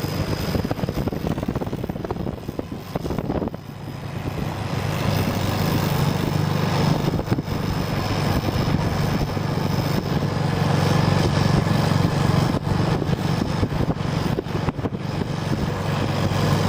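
Tractor diesel engine running under way with an exhaust-mounted turbo whistle adding a thin, steady high whistle over the engine hum. The engine note dips briefly about three and a half seconds in, then builds up again.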